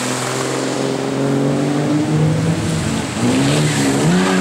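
Vintage racing car engine running hard as the car accelerates through a corner; its pitch falls briefly and climbs again about three seconds in.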